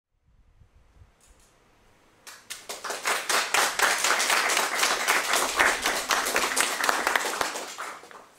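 Small audience applauding with hand claps. The clapping starts about two seconds in, holds steady, and dies away near the end.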